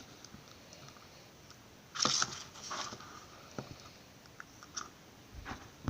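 Slime being stirred with a mixing stick in a cup as Tide laundry detergent activates it: mostly quiet, with a few short louder bursts, the loudest about two seconds in.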